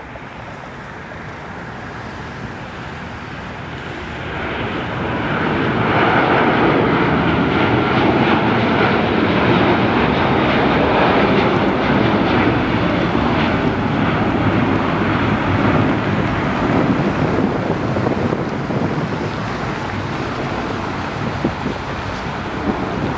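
Boeing 777 twinjet at takeoff power. Its engine noise swells over the first six seconds and stays loud as the airliner lifts away, then slowly fades as it climbs out.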